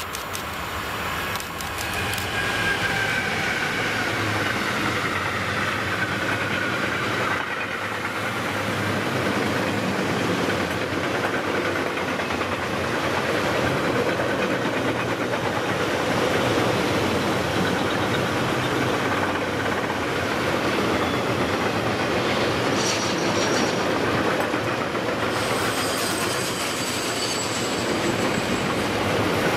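Electric freight train passing close: the locomotive goes by with a falling whine in the first few seconds, then a long rake of empty car-transporter wagons rolls past with a steady wheel rumble and clatter. Brief high wheel squeals come near the end.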